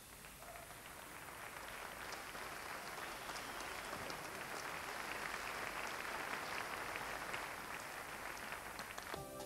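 Audience applauding: a dense, even clapping that builds gradually over the first few seconds and eases off near the end.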